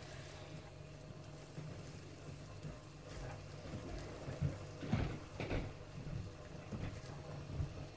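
Spatula stirring and turning cooked rice in a frying pan, with soft scrapes and knocks against the pan; the loudest is a pair of knocks about five seconds in.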